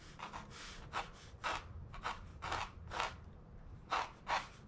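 Pencil scratching on the painting surface in a run of short, quick strokes, about two to three a second with a brief pause a little past three seconds in, as an evergreen tree is sketched in.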